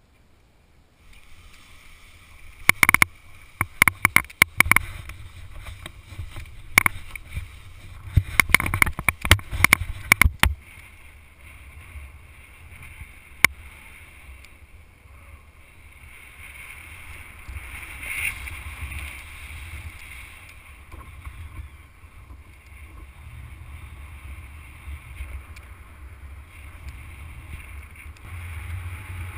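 Wind buffeting the microphone in a steady rush with low rumble, with a cluster of sharp clicks and knocks from about 3 to 10 seconds in and one more click a few seconds later. The wind noise grows near the end as the paraglider gets moving off the slope.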